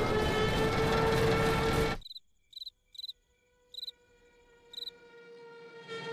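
A loud whine over heavy noise, rising slightly in pitch, cuts off suddenly about two seconds in. Crickets then chirp in short, separate bursts, while a faint steady hum grows louder toward the end.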